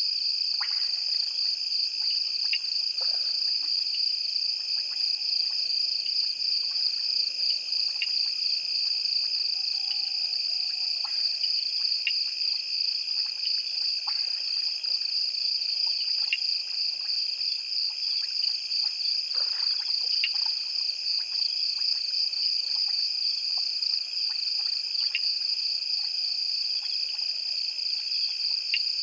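Night chorus of insects, a steady high pulsing trill, with frogs calling in short sharp notes every few seconds.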